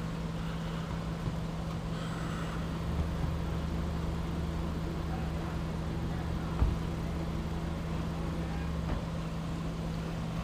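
Steady low hum of an idling vehicle engine, with a deeper engine note joining for several seconds in the middle. A single short thump comes about six and a half seconds in.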